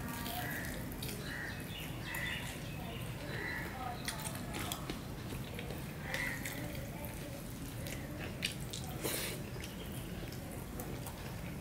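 A man chewing food, with wet mouth sounds and scattered small clicks, while his fingers mix rice and curry on a steel plate.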